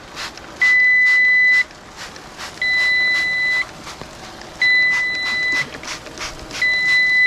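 Digital meat-probe thermometer beeping: four one-second beeps, one every two seconds, the last cut off at the end. He takes the beeping for the sign that the probe is set.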